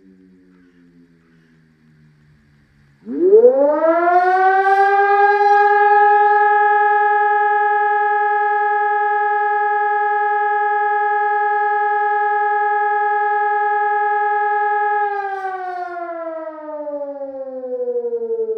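Civil defence siren on a test: a falling tone fades out, then about three seconds in the siren winds up quickly to a steady tone. It holds that tone for about twelve seconds, then winds down with steadily falling pitch.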